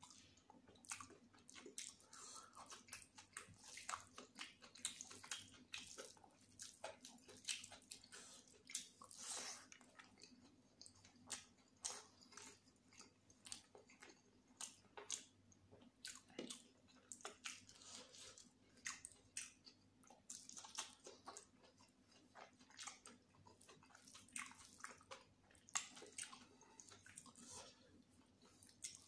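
Close-miked chewing of chicken biryani: a steady run of irregular wet smacks and short clicks of the mouth and teeth.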